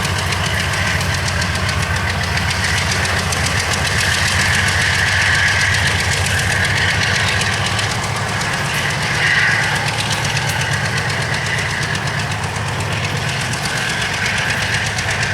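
CSX freight train on the move, its diesel locomotive engine running with a steady low drone.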